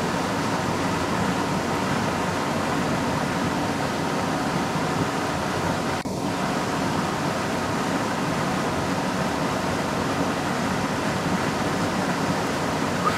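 Steady rush of water pouring through a spillway, with a brief dropout about six seconds in.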